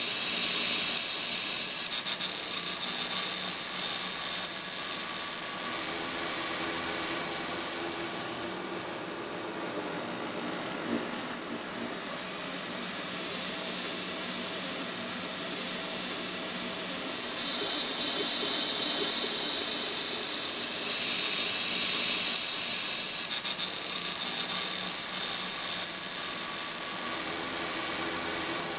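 A steady, high hiss that dips around ten seconds in and then swells back.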